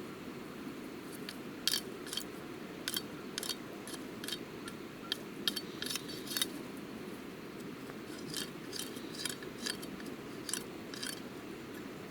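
A run of irregular light clicks and small metallic clinks, more than a dozen, clustered in two bursts, over a steady low rushing noise.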